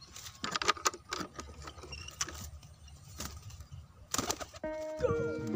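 Racing pigeons being picked up and handled: a scattered series of short rustles and knocks, with pigeon sounds mixed in. Background music starts near the end.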